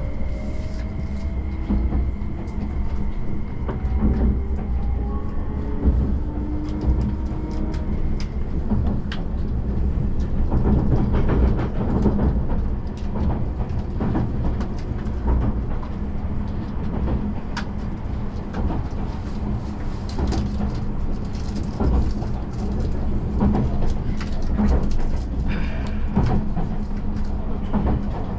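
Tobu Spacia X (N100 series) electric limited express running, heard from inside the passenger car: a steady low rumble with a hum and scattered clicks of the wheels on the rails. In the first several seconds a few faint whines rise slowly in pitch.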